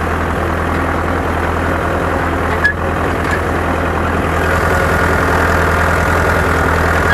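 Farm tractor's diesel engine running steadily as it pulls a manure spreader through a stubble field.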